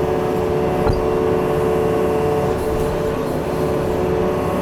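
Yanmar excavator's diesel engine running steadily, with a single brief knock about a second in.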